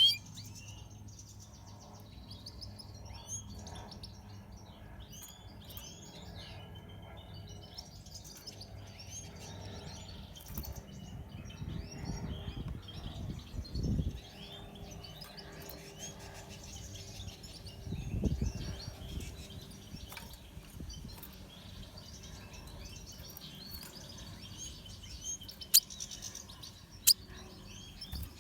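Red siskins twittering and singing: a continuous run of quick, high chirps and trills. Two dull thumps come in the middle, and two sharp clicks come near the end.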